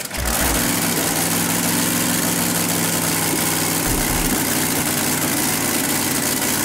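Supercharged Top Fuel drag boat engine running steadily at idle, loud and even.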